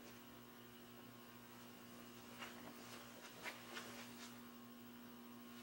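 Near silence filled by a steady electrical mains hum, with a handful of faint short clicks between about two and four and a half seconds in.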